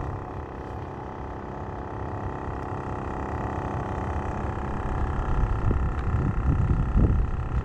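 Steady engine hum made of several held tones over a low rumble. From about five seconds in, wind buffets the microphone in irregular gusts.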